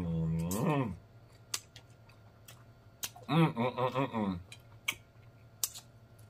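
Close-miked eating sounds while chewing soft pig feet: sharp wet lip smacks and mouth clicks, with two hummed "mmm" moans of enjoyment, one at the start and a longer one about three seconds in.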